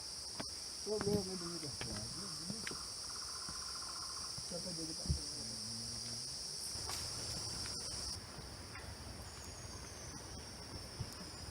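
Steady high-pitched insect chorus from the forest, a continuous shrill drone; one of its layers stops about eight seconds in. Faint voices are heard briefly about a second in and around the middle.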